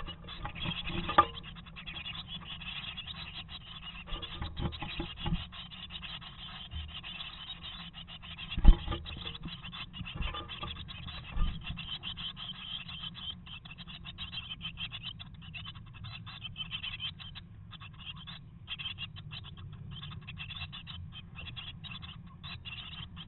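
Blue tit chicks and an adult bird shifting about in a moss nest inside a wooden nest box: steady scratching and rustling, with a few knocks against the box, the sharpest about nine seconds in.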